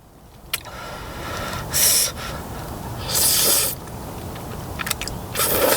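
Jjajangmyeon noodles being slurped, in three short hissy bursts, the middle one the longest, with a couple of small clicks between them.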